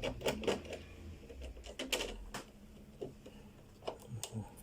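Irregular clicks and taps of tools and hands working on a flat-screen TV's plastic and metal parts as it is taken apart, with more of them in the first half.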